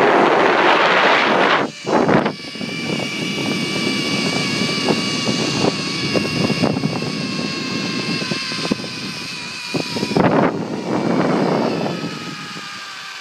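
Zip line trolley's pulley wheels running along the steel cable: a steady multi-tone whine that slowly falls in pitch as the rider slows, with scattered clicks. Loud rushing noise comes at the start and again about ten seconds in.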